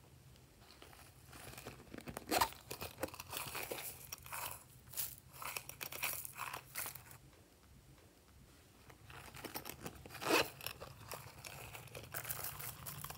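Dry sequins and glitter poured from a plastic jar and handled over slime, making a dense run of small crackles and clicks. It comes in two spells with a quieter gap between them, and each spell has one sharper click.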